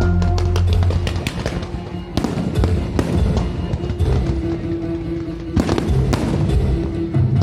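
Aerial fireworks bursting and crackling, many sharp reports in quick succession with denser clusters about two seconds in and again near the end. Music with a steady low bass plays underneath.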